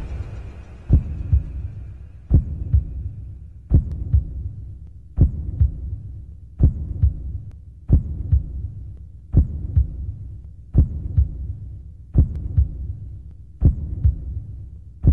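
Soundtrack pulse like a slow heartbeat: a deep thump about every one and a half seconds, each followed by a softer second beat, over a low hum.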